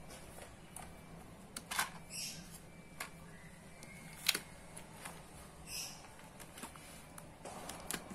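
Quiet clicks and knocks of a plastic watercolour palette case being pulled out, set down and opened on a desk, with a few brief rustles. The sharpest click comes a little past four seconds in, as the lid opens.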